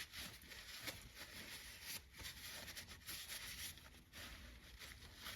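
Faint rubbing and rustling of a cloth wiping a lathe change gear clean, in uneven strokes.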